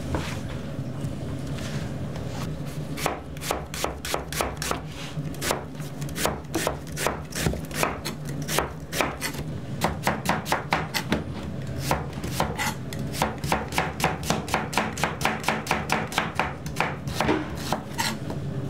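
Chef's knife slicing onions on a plastic cutting board: a fast, even run of sharp knocks, several a second, starting about three seconds in, over a steady low hum.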